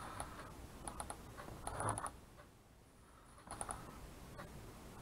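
Faint clusters of small clicks and taps from a paintbrush tip dabbing dots of paint onto a painted rock. There are about four short clusters, with a quieter stretch from about two to three and a half seconds in.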